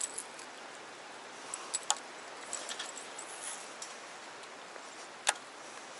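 Metal blade and hooks of a bladed surface lure clinking as it is handled, then scattered small clicks and one sharp click about five seconds in, over a steady faint hiss.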